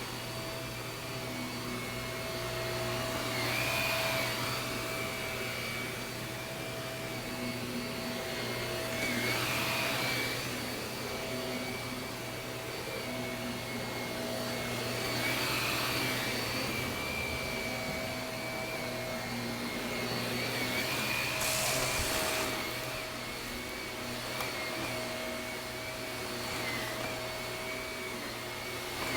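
Shark vacuum cleaner running over carpet with a steady motor whine. The sound swells and eases about every six seconds as the vacuum is worked back and forth in long strokes.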